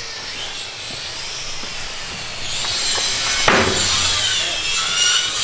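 A power tool working wood, its high whine wavering up and down and growing louder about halfway through, with a single knock about two-thirds of the way in.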